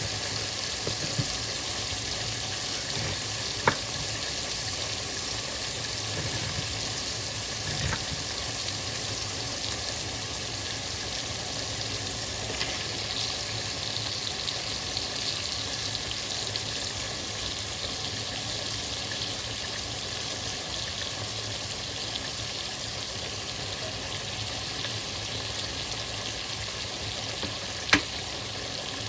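Beef and seasoning frying in a pot with a steady sizzle, broken by two sharp clicks, one a few seconds in and one near the end.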